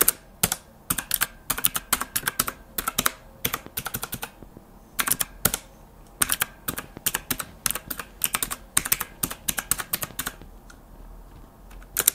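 Typing on the Aula L2098 mechanical keyboard with blue switches: quick runs of sharp key clicks, broken by short pauses about four seconds in and again about ten seconds in.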